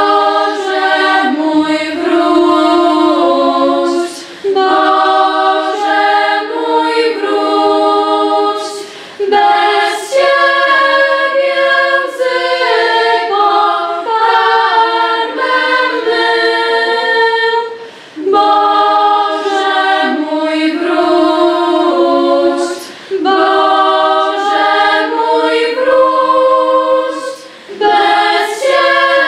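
Girls' and women's choir singing a cappella in Polish, held notes broken by short breaks for breath every few seconds.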